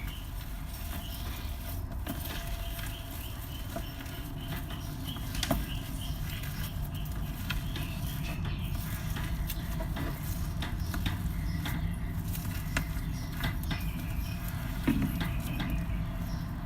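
Crunchy slime being squeezed and kneaded by hand: a steady run of small crackles and pops, with the odd louder snap.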